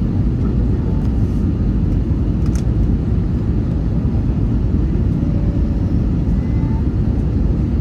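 Steady rumble of an Airbus A321 heard from inside its cabin, with a faint click about two and a half seconds in.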